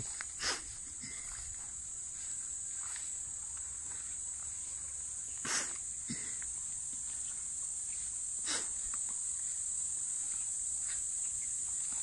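Steady high-pitched insect chorus, with three brief scuffing noises about half a second, five and a half and eight and a half seconds in.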